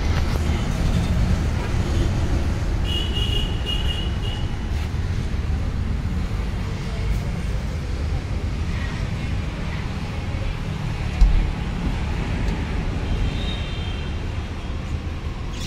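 Steady low rumble of road traffic, with a short thump about eleven seconds in.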